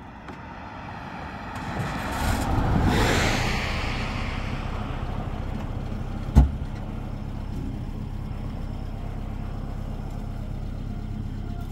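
A motor vehicle running with a steady low rumble that swells loudest about two to three seconds in, with one sharp knock about six seconds in.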